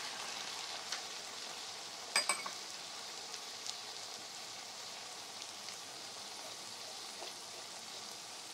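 Marinated chicken livers sizzling in hot oil with onions and tomatoes in a pan: a steady frying hiss with a few small pops. A short sharp clink about two seconds in.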